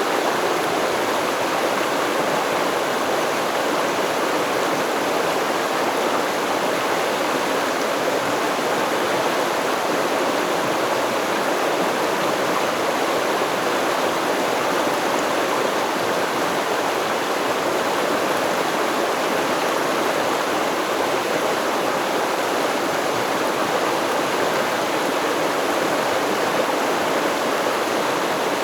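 A stream's water flowing and babbling steadily, an even rush that does not change.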